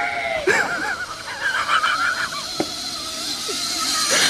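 People shrieking and laughing in wavering, high cries as someone rides a rope swing, with a sharp click about two and a half seconds in and a rising hiss near the end.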